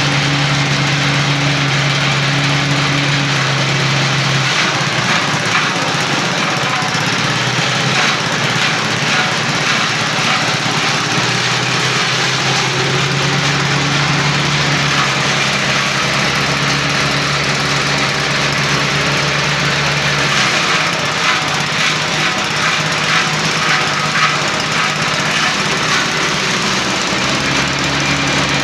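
Small engine of a grass and banana-stem chopper machine running continuously. Its steady low hum twice gives way for several seconds to a rougher, noisier sound, once early on and once past the middle.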